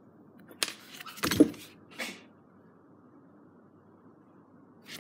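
A few sharp knocks and a hard, rattling clatter in the first two seconds, the loudest about a second and a half in, as steering wheel parts are handled on a concrete floor. The rest is quiet room tone.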